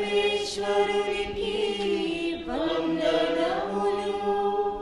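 Voices singing an unaccompanied chant in long held notes, a sung response at the close of a Catholic Mass; the singing fades out near the end.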